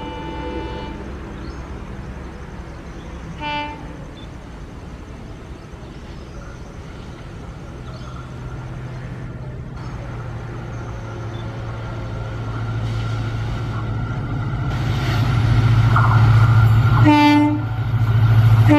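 Indian Railways diesel locomotive approaching: its horn sounds at the start, gives a short toot about three and a half seconds in and another short blast near the end, while the low rumble of the engine and train grows steadily louder as it nears.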